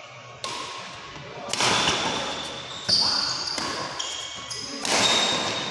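Badminton rally: about four sharp racket strikes on the shuttlecock, roughly one every second to two seconds, each ringing on in the hall's echo.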